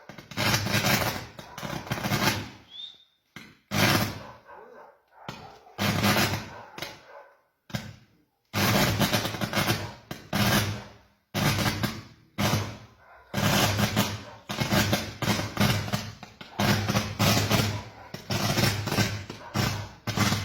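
Fireworks going off: a long run of loud bangs, each starting sharply and dying away over a second or two, some overlapping.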